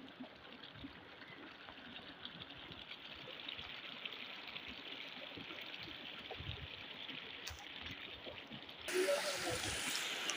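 Muddy floodwater flowing, a steady rush of running water that slowly grows louder. About nine seconds in it switches abruptly to a louder, hissier rush of fast-moving water.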